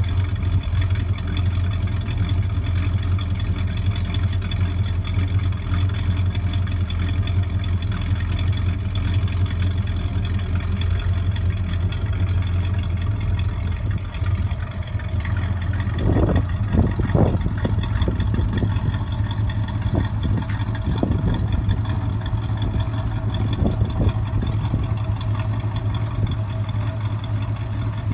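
A 1965 Pontiac GTO's 389 V8, fed by a Holley 650 double-pumper carburettor, idling steadily through its exhaust, with a few short throttle blips about halfway through.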